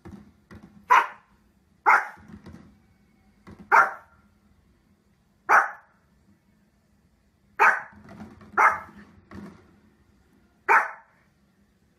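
A small fluffy dog, Pomeranian-type, barking sharply seven times at irregular gaps of one to two seconds, with fainter low sounds between the barks.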